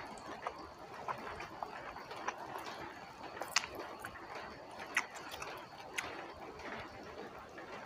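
Close-up eating sounds from a person chewing a mouthful of rice and chicken with the mouth working wetly. It gives faint sharp mouth clicks and smacks every second or so, a few louder ones past the middle.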